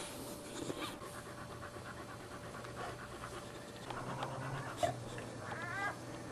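Dog panting quickly and evenly in labour while giving birth, with a short high-pitched cry near the end.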